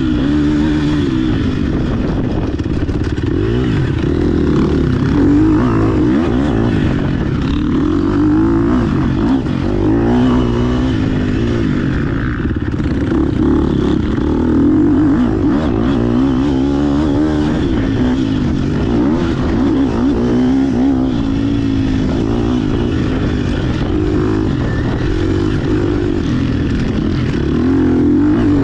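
GasGas EX 250F dirt bike's four-stroke single-cylinder engine, heard close from on the bike as it is ridden, its revs rising and falling again and again.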